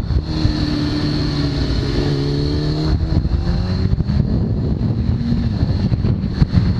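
2003 Kawasaki ZX-6R inline-four through a full Hindle titanium exhaust, accelerating hard. The revs climb, drop at an upshift about three seconds in, and climb again, with wind rushing over the microphone.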